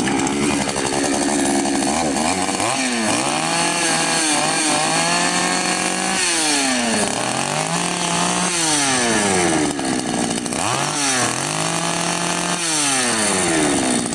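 Patriot 4518 two-stroke chainsaw, bar and chain off, running and revved up and down repeatedly between idle and high speed. This is a test run to check that the repaired oil pump now feeds oil.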